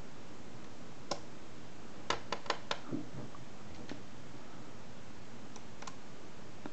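Small neodymium magnet spheres clicking as they snap onto a large magnet-ball sculpture: a single sharp click about a second in, a quick run of four clicks around two seconds in, then a few fainter ticks.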